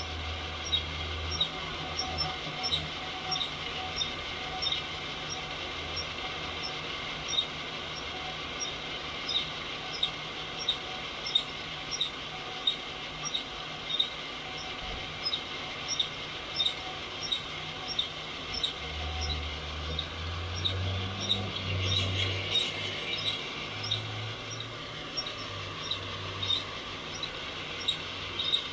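Home heat-gun coffee roaster running: a steady rush of hot air from the heat gun, with a short squeak about every 0.7 seconds from the drill-turned stainless flour-sifter drum as it rotates.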